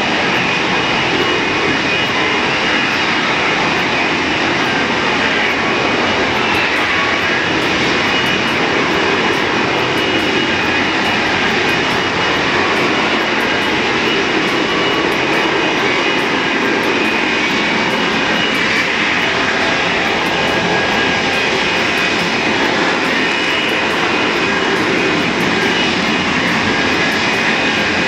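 F-35B jet fighter hovering in a vertical-lift display: steady, loud jet noise with a high whine running through it, holding level the whole time.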